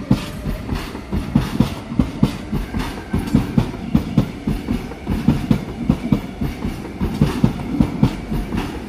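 Sydney Trains Tangara electric train rolling past, its wheels knocking over the points and rail joints in a dense, irregular clickety-clack, several knocks a second.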